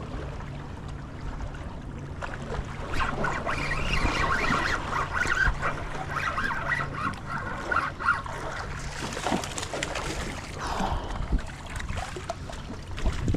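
A flock of birds honking in a rapid, overlapping chorus for several seconds, over a steady low engine hum that fades out partway through.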